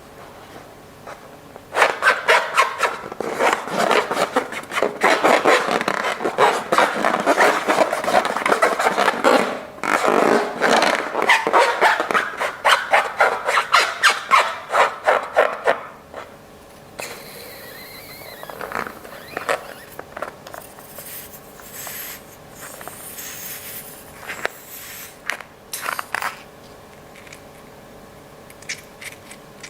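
Slime being mixed and worked by hand: a dense run of sticky crackling, clicking and scraping from about two seconds in, thinning out to scattered squelches and rubs after about sixteen seconds.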